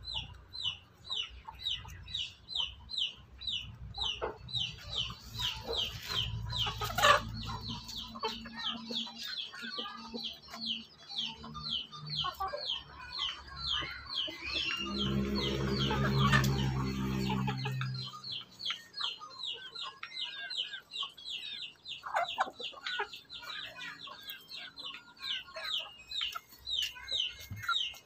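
Farmyard chickens calling: a steady run of high, short falling peeps, about three a second, with scattered clucks. A low hum rises for a few seconds in the middle.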